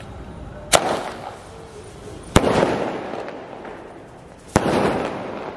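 Super Star 'Double Action' mini sky shot firework going off: three sharp bangs roughly two seconds apart, each trailing off over about a second. The first is the launch and the next two are the shell bursting twice in the air.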